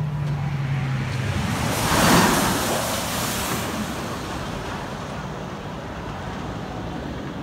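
Intamin hydraulic-launch roller coaster train (Top Thrill Dragster) rushing along its track at launch speed. A loud whoosh swells to a peak about two seconds in, then fades as the train climbs the tower. A steady low hum stops after the first second or so.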